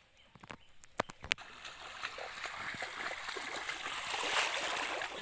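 A couple of sharp clicks about a second in, then water swishing and splashing, growing louder, as a bamboo-framed push net is shoved through shallow, muddy paddy-field water.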